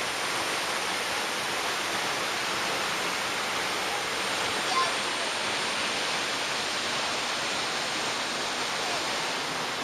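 Steady, even rush of a waterfall plunging into its pool, with a brief faint call about halfway through.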